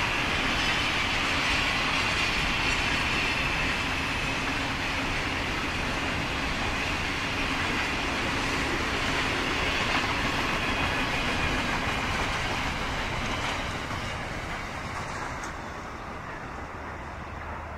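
Freight train's container wagons rolling past on steel rails, a steady rumble of wheels on track. It fades away about fourteen seconds in as the end of the train passes.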